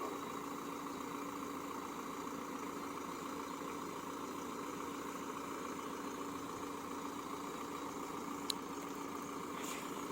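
Fiat Punto Evo's engine idling steadily while the car sits stuck off-road, with a single sharp click about eight and a half seconds in.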